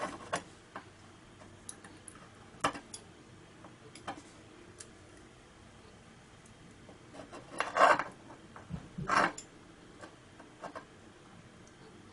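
Small metal tweezers clicking and tapping against a battery cell's welded tab and fuse, in scattered light ticks, with two louder handling noises about eight and nine seconds in.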